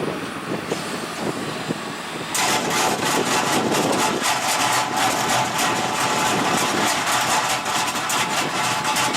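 Excavator-mounted Echidna OmniCut triple-blade stone saw running over the excavator's engine. About two seconds in, the sound turns suddenly louder and harsher, with a dense crackle and a few steady tones.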